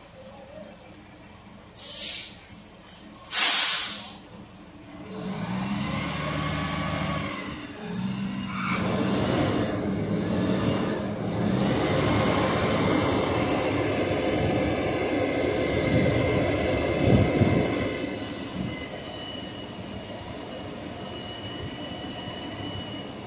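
Dump truck: two sharp air-brake hisses about two and three and a half seconds in, then the diesel engine runs up under load as the hydraulic hoist raises the dump body. The engine eases back to a lower, steady run near the end.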